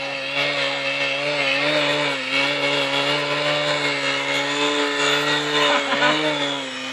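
Electric motor and propeller of a small aerobatic RC plane running steadily, holding the plane in a nose-up hover on its propeller; a buzzing whine whose pitch wavers slightly.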